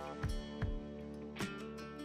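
Instrumental background music: held notes with low drum hits.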